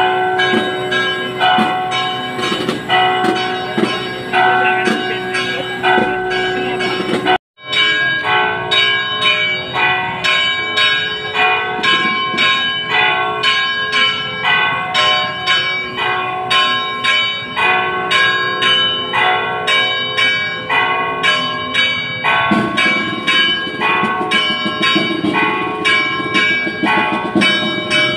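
Church bells ringing, struck rapidly and unevenly at several pitches, each stroke ringing on over the next. There is a brief break about seven seconds in, and a lower, noisier sound joins in the last few seconds.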